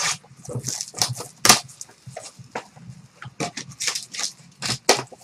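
Shrink-wrapped cardboard boxes being handled and set down, the plastic wrap crinkling in irregular rustles with a few sharper knocks.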